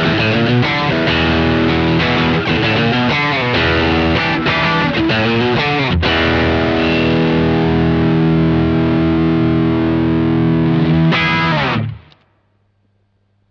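Electric guitar played through a GFI System Jonassus Drive analog overdrive pedal, giving a distorted tone. It plays a run of notes and chords, then a chord is held and left ringing. A last chord is struck near the end and the sound cuts off abruptly.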